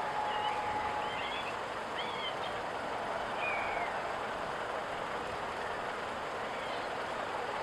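Boeing 777 jet engines at takeoff power, a steady broad roar with a high whine that fades out about a second in. Small birds chirp over it.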